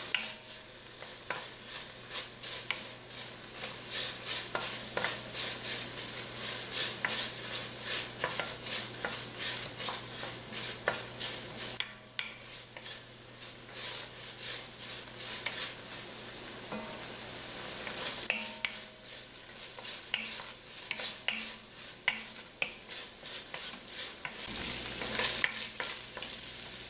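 Chopped bacon sizzling and crackling in a little oil in an enameled Dutch oven at medium heat as its fat renders out, with a wooden spoon stirring and scraping it around the pan. The crackle eases for a few seconds about halfway through, then picks up again.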